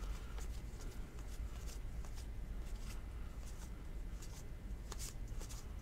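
2019 Topps baseball cards being flipped through by hand, one card at a time slid off a stack, giving faint, irregular soft clicks and rustles over a low steady hum.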